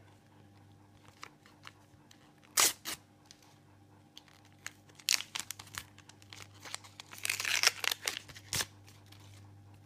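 Foil wrapper of a Panini football sticker packet being torn open and crinkled by hand, with the stickers inside handled. A single sharp rip comes about two and a half seconds in, and a longer, louder stretch of crinkling and tearing comes near the end.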